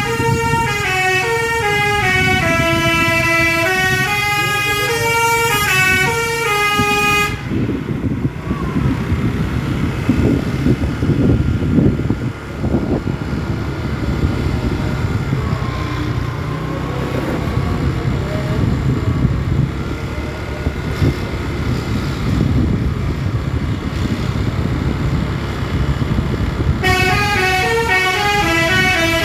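Bus basuri "telolet" multi-tone horn playing a stepping melody for about seven seconds. Then the horn stops, leaving vehicle engine and road noise. The horn melody starts again near the end.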